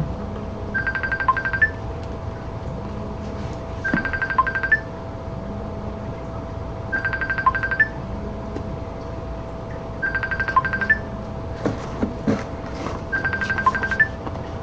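An electronic telephone ringtone, a short fast trill that repeats about every three seconds, five times, over a steady hum. A few sharp clicks or knocks sound near the end.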